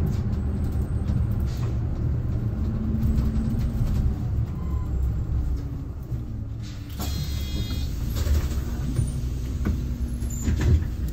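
Low-floor city bus heard from inside the cabin near the front, its drivetrain and road noise making a steady low rumble. A brief high-pitched sound comes about seven seconds in, and a short knock near the end.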